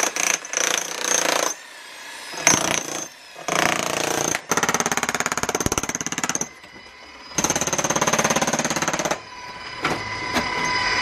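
Makita electric demolition hammer with a flat chisel bit chipping into a concrete countertop. It hammers in about five runs of one to two seconds each, with short pauses between them.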